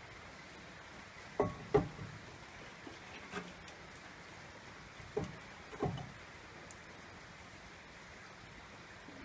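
Brake caliper and pads being handled by hand, giving a few short metal knocks and clinks: two close together about a second and a half in, one at about three seconds, and two more between five and six seconds, over a faint steady hiss.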